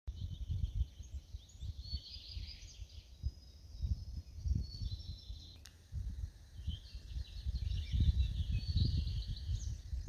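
Small birds chirping and singing in pine woods, many quick high notes, over an uneven low rumble of wind gusting on the microphone. A single sharp click a little past halfway.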